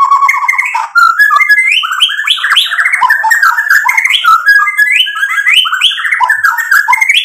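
White-rumped shama (murai batu) singing in full voice: a fast, unbroken string of varied whistled phrases, many rising, full of its learned repertoire ('isian'). It opens with a short held note and breaks off briefly about a second in.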